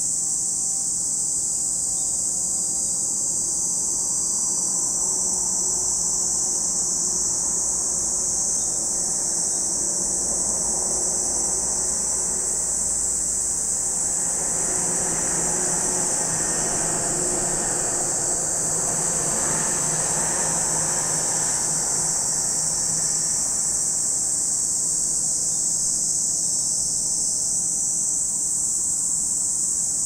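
A chorus of cicadas keeps up a steady, high-pitched drone. Partway through, a vehicle passes: a broad rumble swells, holds for several seconds and fades out again.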